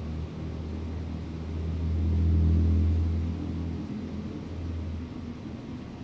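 A motor vehicle's engine running past, a low hum that swells to its loudest about two to three seconds in and then fades.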